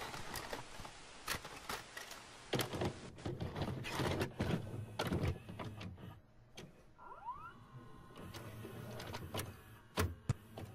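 A VCR mechanism clicking and clunking irregularly, with a motor whirring, as a videotape loads and starts to play. A brief rising whine comes about seven seconds in, and two sharp clicks come near the end.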